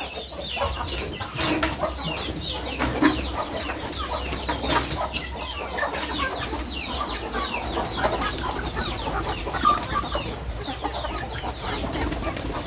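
A flock of chickens clucking and calling, many short quick calls overlapping without pause, with scattered clicks and wing flaps among them.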